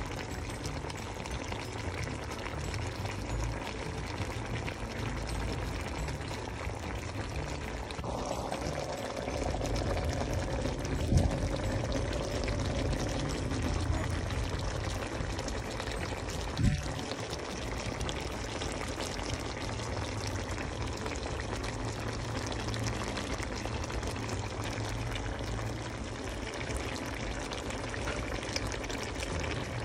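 Lobster simmering in coconut-milk sauce with celery and onions: a steady bubbling of the sauce, with two sharp knocks near the middle.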